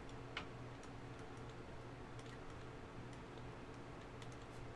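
Faint, scattered light clicks over a low steady hum, in an otherwise quiet room.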